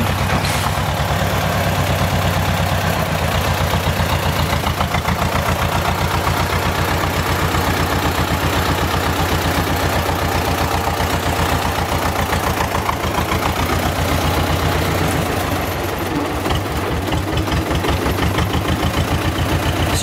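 Tractor engine running close by with a steady, rapid chugging, working as it tows a bundle of birch poles on a wire loop.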